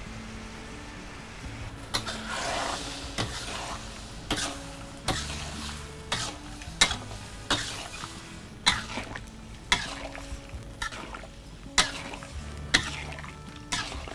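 Metal spatula knocking and scraping against a steel wok while plums and ginger are stir-fried: about a dozen sharp clanks, roughly one a second, with a scraping stretch about two seconds in. Soft background music runs underneath.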